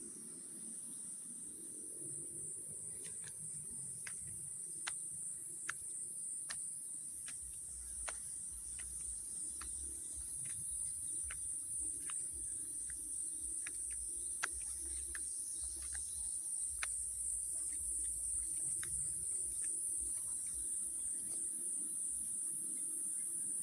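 Steady, high-pitched chorus of insects such as crickets, with a scattering of sharp clicks through the first two-thirds.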